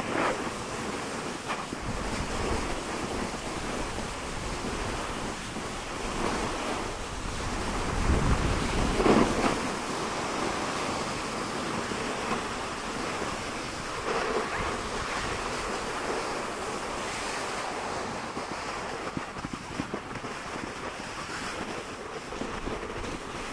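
Wind rushing over a phone's microphone while riding down a ski slope, mixed with the hiss and scrape of snow under the filmer's edges. A louder gust and scrape swells about eight to nine seconds in.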